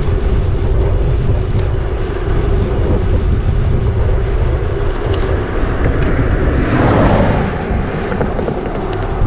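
Wind rumbling on the microphone of a bicycle-mounted camera as the bike rides along a highway, with a vehicle passing by about seven seconds in, swelling and fading.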